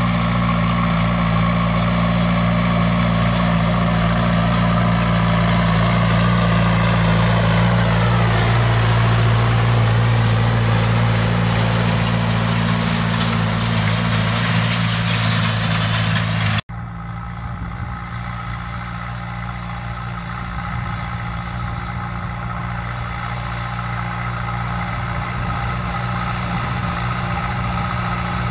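John Deere tractor's diesel engine running steadily under load while pulling a mounted seed drill over tilled soil. Its pitch glides about nine seconds in, and the sound cuts abruptly about seventeen seconds in, then carries on somewhat quieter.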